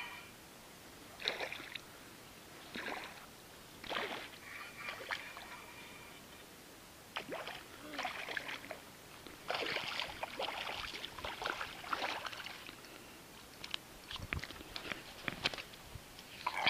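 Small hooked pike splashing and thrashing at the surface of shallow water as it is reeled in, in short, irregular bursts, with a longer run of splashing about ten seconds in.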